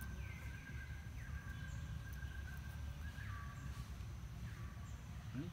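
Outdoor ambience: a steady low rumble and a thin steady high tone, with a short falling animal call repeating about once a second.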